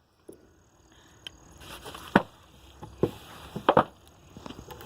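Sharp, irregular blows on wood, about four strikes with the loudest about two seconds in and a quick pair near the end, as a fidget spinner is beaten on a wooden plank to break it and knock its bearing out, chipping the wood.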